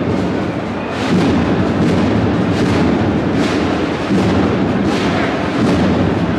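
Spanish cornet-and-drum band (banda de cornetas y tambores) marching and playing a processional march, its drums striking heavy beats about every three-quarters of a second.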